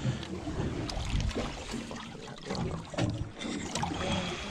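Water sloshing against the side of a drifting boat's aluminium hull, an uneven wash with low swells and a few small knocks.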